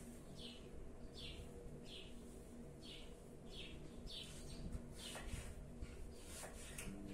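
A small bird chirping over and over: short falling chirps, about one every three quarters of a second. Near the end come a couple of light taps of a knife cutting apple on a wooden board.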